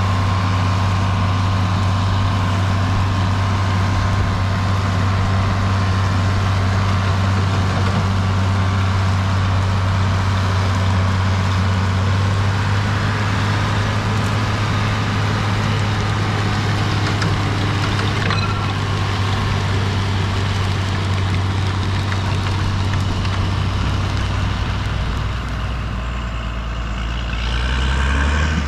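John Deere 4640's 7.6-litre turbocharged six-cylinder diesel running steadily under load while pulling a working manure spreader. The engine note shifts and dips briefly near the end, then grows louder again.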